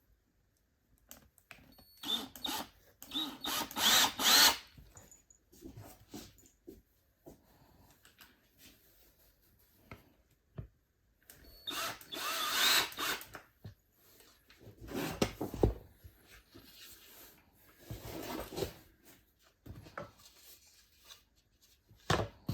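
Cordless drill driving screws into a flat-pack chest of drawers, run in several short bursts with pauses between.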